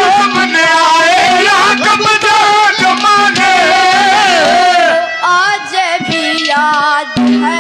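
Haryanvi ragni folk song performed live: a young singer's voice carries an ornamented, wavering melody over instrumental accompaniment. About five seconds in, the texture turns choppier and drum strokes come to the fore.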